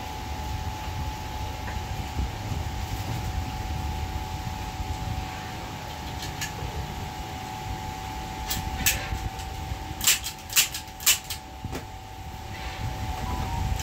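A hand-held framer's staple gun firing fasteners into the backing board of a picture frame: five or so sharp snaps in the second half, about half a second apart, over a steady hum.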